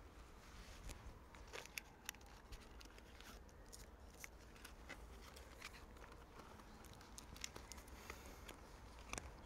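Near silence: quiet room tone with a scattering of faint, short clicks and ticks.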